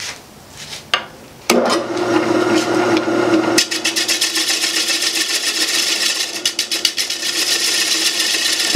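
A Jet 1440 wood lathe, set to 400 rpm, spins a glued-up mahogany ring bowl while a bowl gouge cuts its stepped outside. After a second or so of quiet with a few clicks, the steady motor hum and a dense scraping start suddenly. About halfway the scraping becomes a fast, even clatter.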